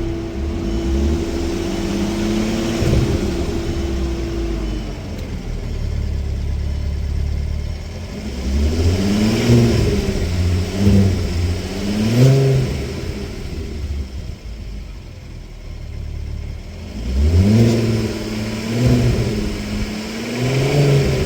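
Volkswagen Mk4 GTI engine and exhaust, fitted with a new center resonator, idling and then blipped: a few quick revs that rise and fall around the middle and again near the end. The exhaust has a stock tone, with the moaning the owner calls 'Wookiee sounds' still there.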